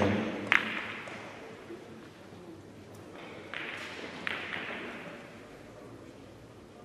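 Billiard balls rolling on a carom table, with a sharp click about half a second in and a few softer knocks a few seconds later as they strike each other and the cushions, each echoing briefly in a large hall.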